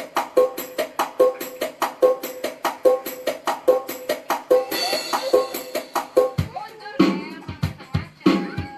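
Yamaha electronic keyboard playing a rhythm: an even, quick beat of sharp wood-block-like strikes, about two and a half a second. About six and a half seconds in, deeper, heavier drum hits take over.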